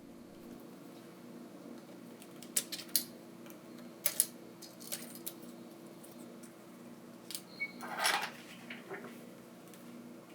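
Small tool clicking and tapping against a smartphone's internals while its battery connector is pried loose: a few sharp clicks spread over several seconds, then a short scraping burst about eight seconds in, over a steady low hum.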